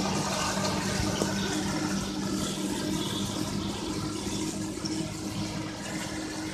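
Fiat tractor engine running steadily while it pulls a manure spreader, whose beaters fling manure out with a dense rushing hiss. Both grow slowly quieter as the rig moves away.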